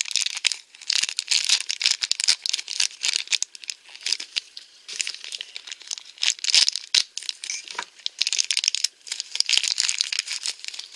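Thin LDPE plastic blind bag crinkling as fingers work it and it is cut and pulled open: a dense, crisp rustle broken by many small clicks.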